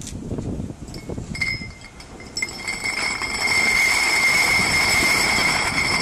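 Heavy steel anchor chain being lowered by crane onto a pile of chain, the links clinking and scraping together. About two and a half seconds in, a loud, steady, high metallic squeal sets in and holds until just before the end.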